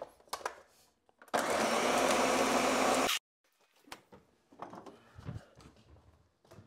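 Countertop blender running for about two seconds, blending a protein shake, then cutting off suddenly. A few faint knocks follow.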